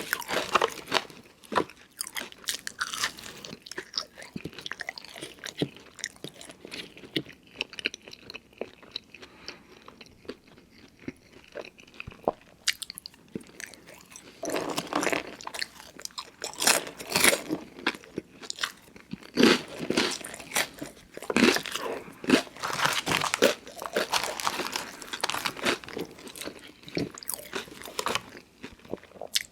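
Close-miked eating: a person biting into and chewing crunchy fast food, with sharp crackly crunches. The chewing is softer for a few seconds in the middle, then comes back as denser, louder crunching bites through the second half.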